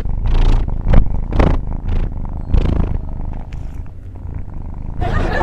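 Domestic cat purring close to the microphone, a low rumble that swells and eases in a repeating rhythm with its breaths. About five seconds in it cuts to a different, hissy background.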